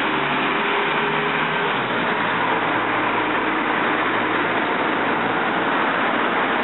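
City street traffic: a bus engine running close by with a low steady hum for about the first two seconds, then an even rush of passing traffic.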